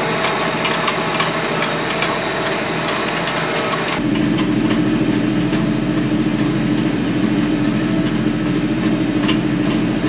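Kioti NS6010 compact tractor's diesel engine running steadily while it pulls a crimper roller through standing grain, with many sharp ticks and rattles over it. About four seconds in the sound changes abruptly to a steadier engine drone with a low hum and fewer ticks.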